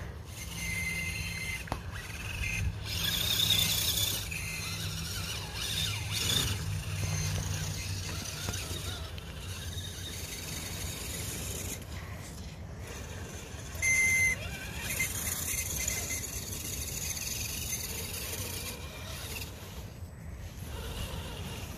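Redcat Gen7 RC crawler's electric motor and gear drive whining as it climbs through snow, the high-pitched whine coming and going with the throttle, with a brief louder spurt about two-thirds of the way through.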